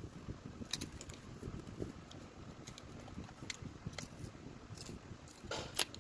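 Scattered small clicks and taps of hands and tools handling a cellphone during a screen repair, over a low rumbling background, with a cluster of sharper clicks near the end.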